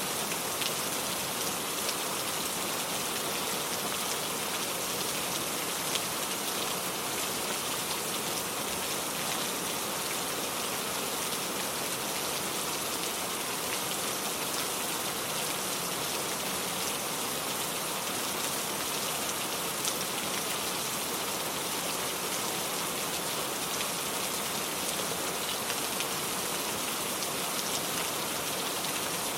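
Steady heavy rain falling, a dense even hiss with scattered individual drop ticks.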